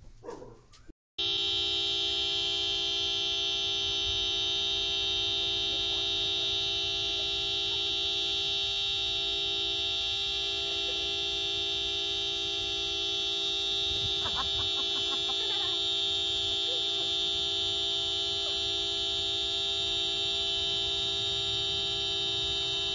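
A car horn held down without a break, one steady unchanging blare starting about a second in, sounded by a husky leaning its paws on the steering wheel.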